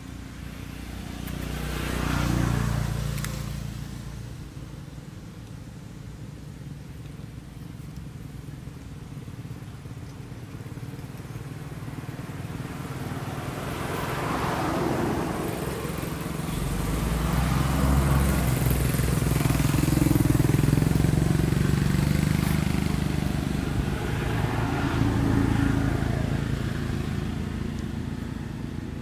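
Motor vehicle engines passing: a short pass swelling and fading about two seconds in, then a longer, louder engine hum building through the middle and fading near the end.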